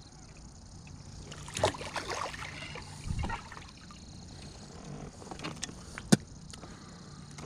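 Scattered knocks and thumps of handling aboard a bass fishing boat just after a bass is landed, with a low thump about three seconds in and a single sharp click near the end, over a steady low hum.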